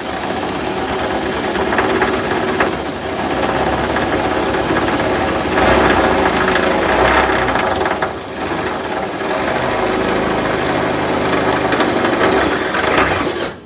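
Electric drill running under load, its bit grinding slowly through the car hood's sheet metal, the pitch and level swelling and easing as pressure changes; it stops suddenly near the end.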